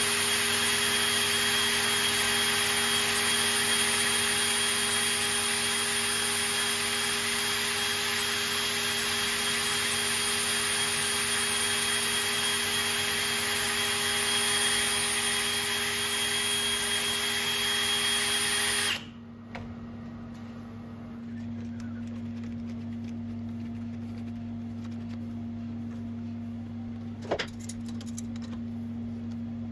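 DeWalt cordless drill driving the shaft of a home-made lathe milling attachment, running at a steady speed, then stopping abruptly about two-thirds of the way through. A quieter steady hum remains afterwards, broken once by a sharp click.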